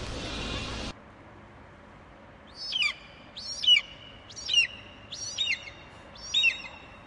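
A bird gives five high, whistled calls about a second apart, each sweeping down in pitch. A short stretch of outdoor noise before them cuts off abruptly about a second in.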